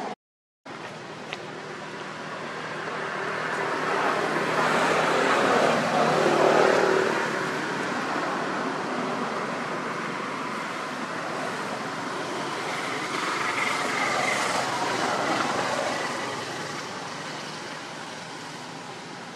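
Distant road traffic: a steady wash of vehicle noise that swells twice as vehicles pass, after a brief dropout at the very start.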